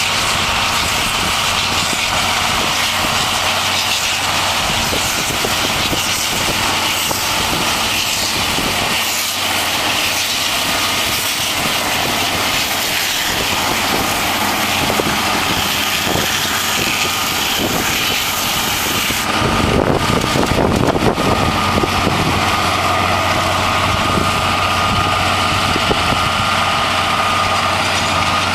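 John Deere 7530 tractor running under load while powering a McHale Fusion baler-wrapper that is picking up and baling a swath of grass: a steady, dense engine and machinery din. About two thirds of the way through the sound changes abruptly, and a steady high whine stands out from then on.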